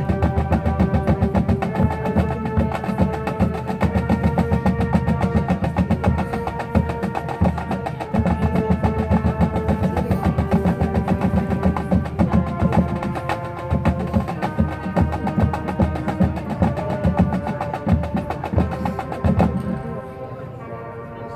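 Marching band playing: held wind chords that change every couple of seconds over rapid drum strokes, with the level falling off near the end.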